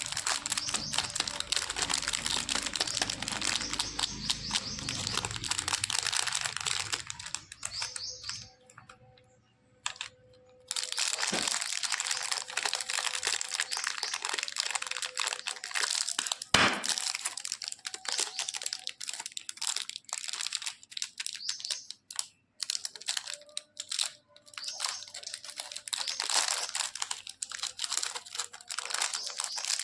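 Candy wrappers being crinkled and handled, a dense crackling of packaging. It breaks off briefly about nine seconds in, and there is one sharp crack a little past the middle.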